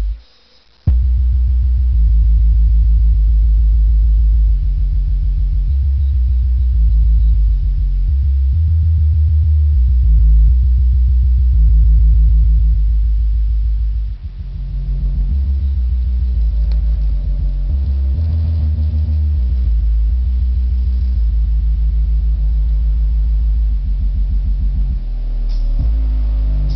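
Bass-heavy music played loud through a home sound system's subwoofers, driven by a Gradiente Model 166 amplifier. Deep bass notes dominate and shift pitch every second or so. It starts about a second in after a brief silence and dips briefly about halfway through.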